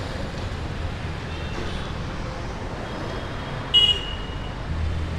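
Steady street traffic noise, a hum of passing vehicles. A short, high-pitched horn beep comes a little under four seconds in.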